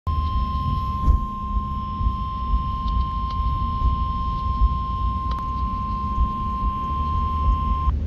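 Midland NOAA weather radio sounding its warning alert tone: one steady high tone held for about eight seconds that cuts off suddenly near the end, the signal that a warning broadcast (here a tornado warning) follows. A low rumble runs underneath, with a couple of faint clicks.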